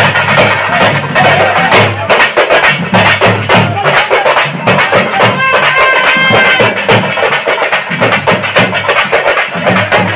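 Loud, fast drumming from a festival procession band, many strokes a second over a steady low drone; a little past the middle a high held note sounds briefly, twice.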